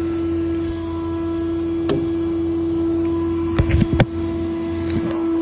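Steady machine hum from the running service truck, a strong single pitch over a lower drone, with a quick cluster of clicks and knocks about three and a half to four seconds in.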